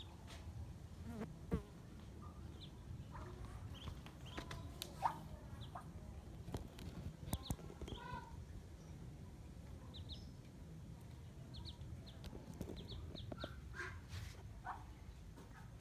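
Ducklings peeping in short, high chirps scattered through, with a few sharp taps and a low steady hum underneath.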